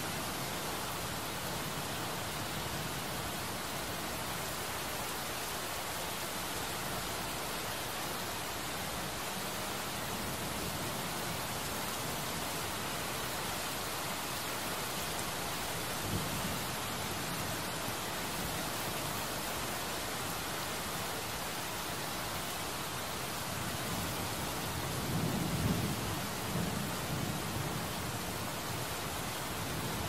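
Heavy rain pouring steadily onto a hard surface, a dense even hiss. A low rumble swells briefly about halfway through and again more strongly a few seconds before the end.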